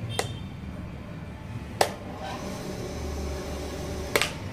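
Sharp clicks of buttons being pressed on a water-level pump controller, three of them a second or two apart, over a low steady hum.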